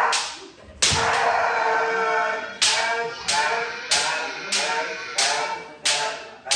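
Kendo practice: a run of sharp cracks, each followed by a shouted kiai. After a longer shout near the start, they come in a steady rhythm about one and a half times a second.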